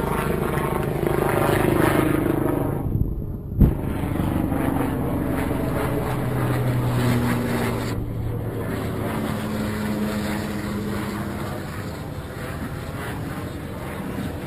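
A motorboat's engine running under a rush of wind and water noise, its note shifting in pitch several times as the speed changes. One sharp knock comes about three and a half seconds in.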